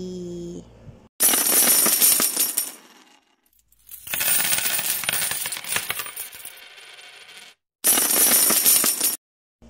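Sound effects of an animated channel intro and subscribe card: three bursts of bright, high, glittering jingle, the first about a second in, the middle one the longest and fading out, the last near the end, each starting and cutting off abruptly.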